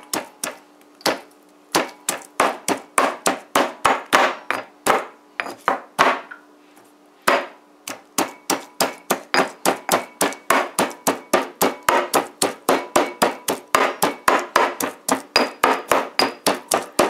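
Stone pestle pounding garlic cloves and hot pepper in a granite mortar: a steady run of sharp strikes, with a short pause about six seconds in, then quicker at about three to four strikes a second.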